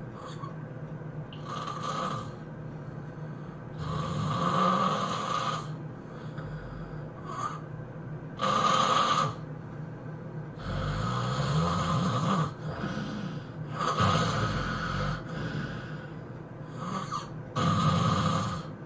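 A sleeping person snoring loudly: about seven heavy snores a few seconds apart, each a noisy burst with a low rumble, with quieter breathing between them.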